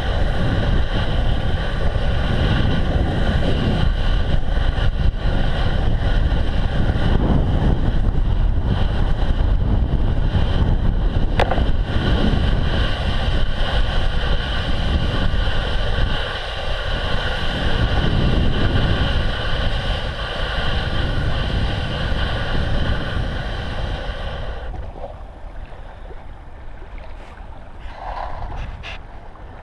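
Bicycle riding over snow, heard from a handlebar-mounted camera: a loud, steady rumble of tyre and frame vibration and wind on the microphone, with a constant hum underneath. It dies down sharply about 25 seconds in.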